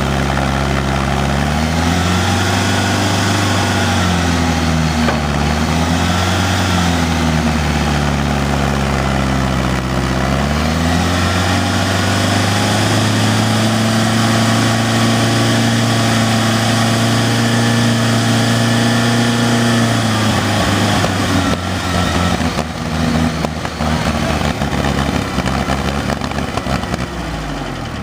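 1959 Case Construction King backhoe's engine working under the operator's throttle: its speed swings up and down several times, then holds high and steady for several seconds, with a higher whine that follows the engine speed. Later come some irregular knocks, and the engine slows near the end.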